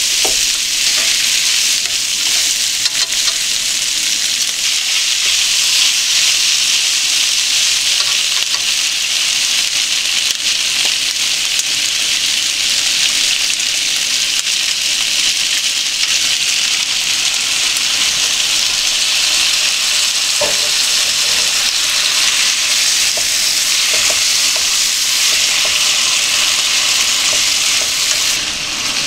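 Thin-sliced pork and onion sizzling steadily in a hot frying pan as they are stirred with chopsticks, with occasional light clicks of the chopsticks.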